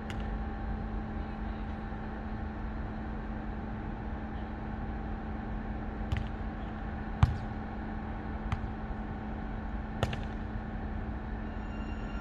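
Beach volleyball rally: four sharp slaps of hands and forearms on the ball, the loudest about seven seconds in, over a steady outdoor hum.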